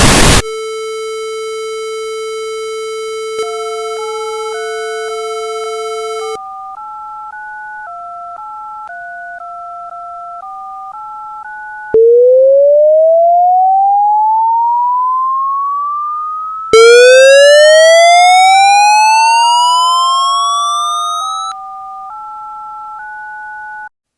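Synthesized telephone-style signal tones. A steady buzzing tone gives way to a string of touch-tone-like two-note tones that change about twice a second, and the run is broken twice by a loud rising siren-like sweep, the second sweep carrying a fan of higher rising overtones. The tones cut off suddenly near the end.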